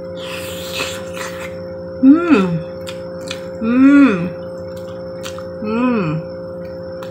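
Close-up mouth sounds of eating soft braised chicken from a spoon: wet sucking and smacking in the first second or so, then three closed-mouth hummed "mmm"s of enjoyment, each rising then falling in pitch, with small mouth and spoon clicks. A steady hum runs underneath.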